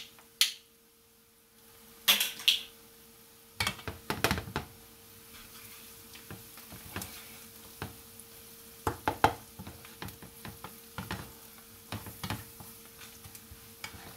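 A wooden slotted spatula stirring flour into frying onions in a nonstick skillet, with irregular scrapes and clacks against the pan over a light sizzle. A few sharp knocks come in the first couple of seconds.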